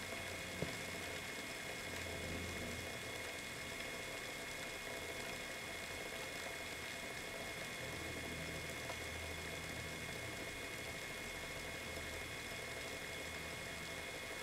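Lightly used Bones Reds skateboard bearings, cleaned with paint thinner, spinning freely inside a longboard wheel: a faint, steady whir over a low wavering hum, with a couple of small clicks just after the start.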